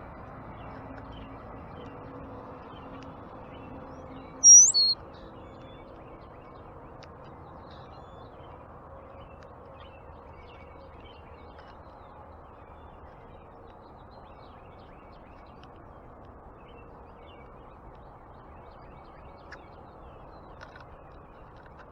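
A bird gives one loud, short, high call about four and a half seconds in. Faint scattered chirps and a steady low background hum run underneath.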